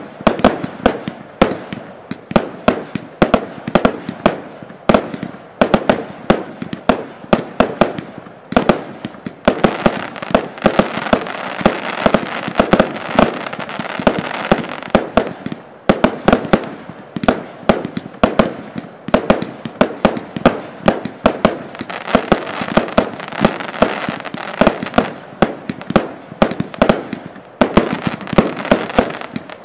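Draco F firework cake firing continuously: a rapid series of sharp launch bangs and small aerial bursts, several a second. A denser hiss fills the shots for a few seconds starting about ten seconds in, and again starting about twenty-two seconds in.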